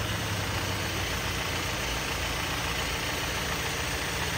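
A 2024 Toyota Tacoma SR5's 2.4-litre turbocharged four-cylinder engine idling steadily just after an oil change and filter swap, with no leaks at the filter.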